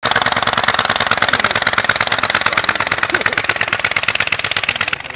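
Anzani three-cylinder fan engine of a Blériot XI running, a rapid, even train of firing pulses. The sound drops off sharply just before the end.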